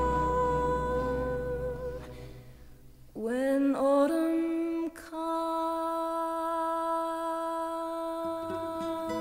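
Slow vocal ballad ending on one long held note that fades away about two and a half seconds in. After a brief pause, a new slow piece begins with a hummed or sung tone that slides up into another long held note.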